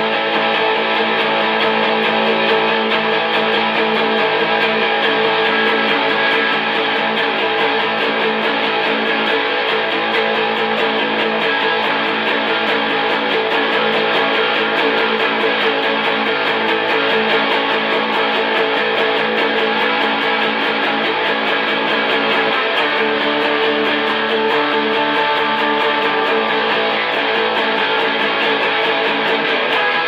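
Hollow-body electric guitar strummed in a steady rhythm.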